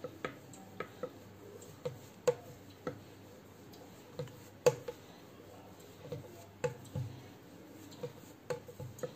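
A rolling pin knocking and clicking on a rolling board as a small ball of dough is rolled out flat: irregular sharp taps, one or two a second.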